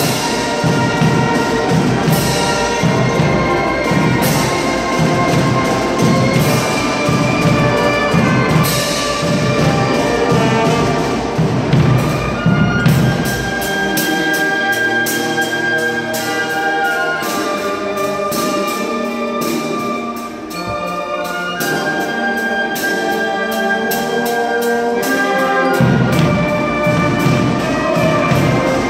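Marching band of brass and drums playing. Steady drum beats sound under the brass, then drop out about halfway through while the brass carries on alone. The drums come back in near the end.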